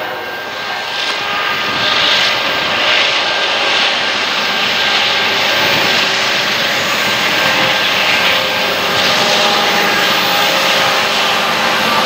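Approaching Norfolk Southern diesel locomotives: a steady, rushing engine drone that builds over the first couple of seconds and then holds.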